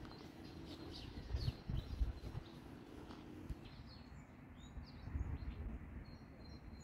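Small birds chirping: many short, high calls scattered throughout, over a low outdoor rumble with a few soft low thumps.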